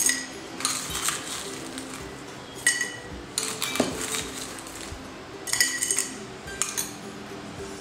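Crushed ice being scooped with a steel spoon from a glass bowl and dropped into a tall drinking glass: ice and spoon clinking against the glass in several separate bursts, some with a brief glassy ring.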